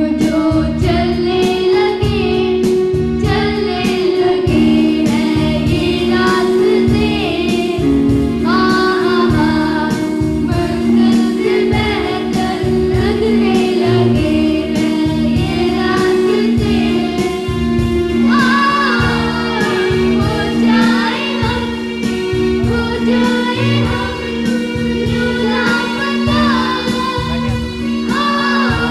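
A group of children singing a Hindi song together over instrumental accompaniment with a steady beat and held low tones.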